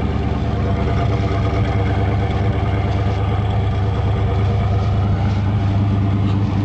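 Car engine idling steadily, with a deep, even exhaust note and no change in revs.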